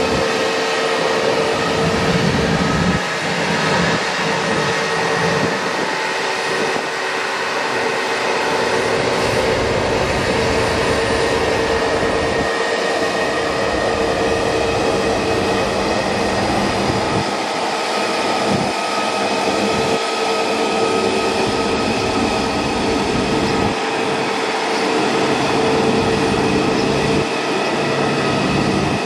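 Jet airliner engines running at a steady pitch: a continuous whine over an even rushing noise.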